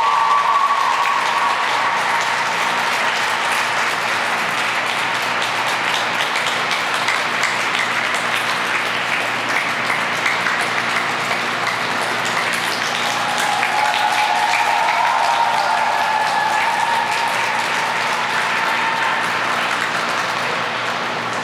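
Arena crowd applauding steadily after a figure skating program, with a few voices calling out over the clapping near the start and again about two-thirds of the way through.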